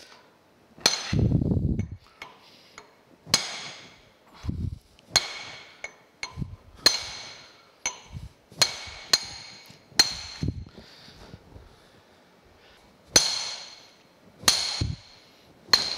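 Hammer blows on a brass drift, driving a steel shaft out of a countershaft hub: about ten sharp metallic strikes, one every second or two, each with a brief ring.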